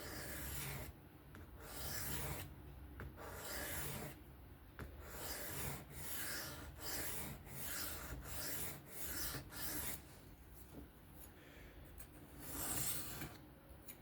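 Knife blade of 3V steel stroked freehand across a sharpening stone, a run of rasping strokes, about two a second in the middle, with the blade turned over between sides.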